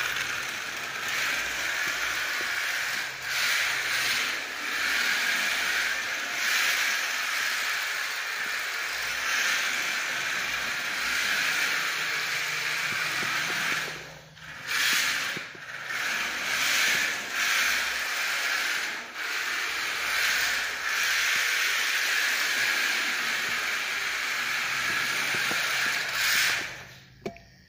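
Electric drivetrain of a 3D-printed 1/10-scale RC Mini chassis running as the car drives on tile: a steady whirring hiss of motor and printed gears. It drops out briefly several times as the throttle is let off, then cuts off near the end.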